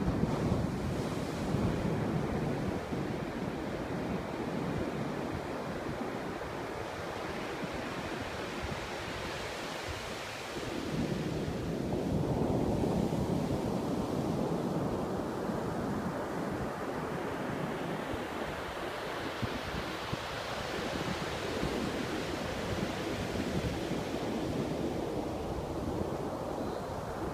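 Ocean surf breaking and washing up a sandy beach in a continuous rush that swells louder about eleven seconds in and again later, with wind rumbling on the microphone.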